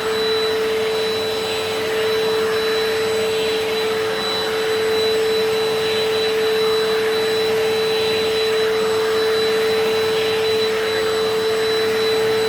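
WAP Power Speed 2-in-1 vertical vacuum cleaner (2000 W) running steadily, with a strong steady whine over the rush of suction. The extension hose and brush nozzle are being worked over a curtain, so the hiss of the airflow swells and eases as the nozzle moves.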